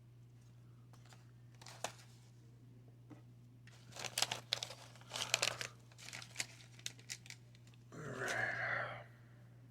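Wax-paper wrapper of a 1990 Fleer baseball card pack being torn open and crumpled: several crackly bursts from about four seconds in, then a denser crinkle lasting about a second near the end.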